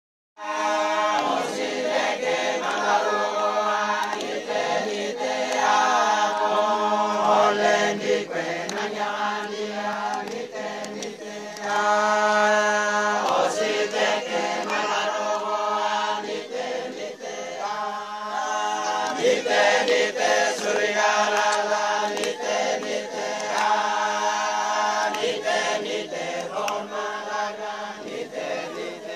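A men's vocal group singing a Christian praise song together in a local regional language, amplified through a microphone.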